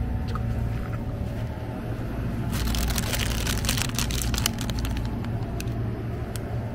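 Plastic bread bag crinkling as a hand pulls a bagged frozen an-donut out of a wire basket in a freezer case, a dense crackle lasting about two seconds midway, with a few light clicks after. A steady low hum runs underneath.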